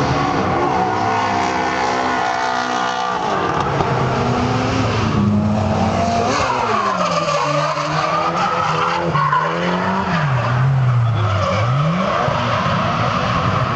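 Drift car's engine revving hard, its pitch rising and falling several times as the throttle is worked through a slide, with tyres squealing.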